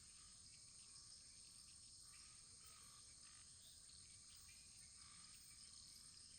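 Faint wood fire crackling, with small irregular pops over a steady high hiss.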